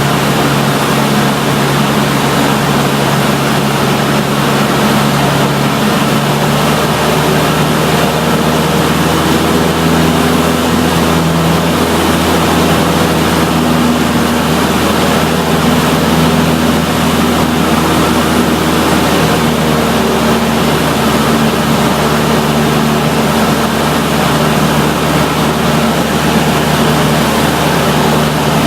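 Cessna 152's four-cylinder Lycoming engine and propeller running with a steady drone under a constant rush of air noise, the engine pitch shifting slightly now and then.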